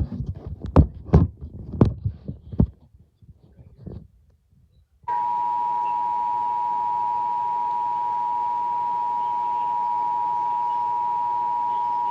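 A few low thumps in the first three seconds, then, about five seconds in, the Emergency Alert System two-tone attention signal starts: two steady tones sounded together and held unbroken over a faint hiss.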